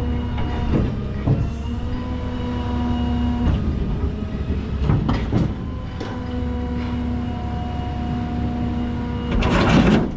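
Engine running at a steady speed, with scattered metallic knocks and clanks, and a loud rushing sound shortly before the end.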